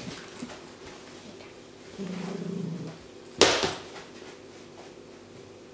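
A Shetland sheepdog opening a red soft-shell suitcase and climbing inside: a low steady sound lasting about a second, then one sharp knock about three and a half seconds in as the dog gets into the case.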